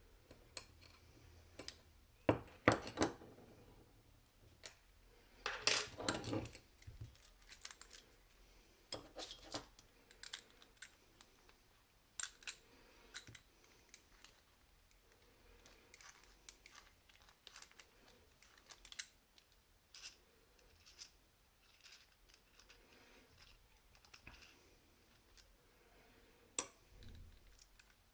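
Small steel parts of an Abloy 242 padlock clicking and clinking as the lock is taken apart by hand: scattered light metallic clicks, with louder rattling clusters about two and a half seconds in and again around six seconds.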